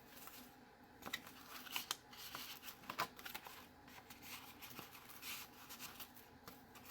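Faint rustling and light clicks of paper being handled: journal pages, tags and cards being turned and shifted.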